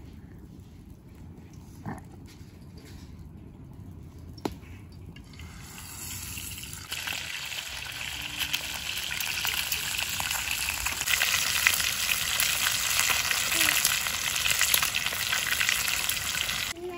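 Saffron-coated stuffed fish frying in oil in a pan over a wood fire, sizzling. After a quiet start with a couple of sharp clicks, the sizzle comes in about a third of the way through, grows louder and stops abruptly just before the end.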